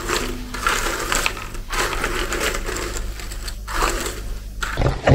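Cardboard pieces of a Moomin jigsaw puzzle being stirred and sifted by hand in their box, a continuous clattering rattle that comes in uneven bursts with brief pauses.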